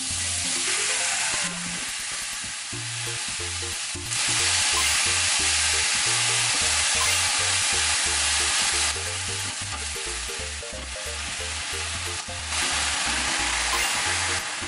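Thinly sliced pork sizzling as it fries in a frying pan, a dense hiss that steps louder and softer a few times. Light background music plays under it.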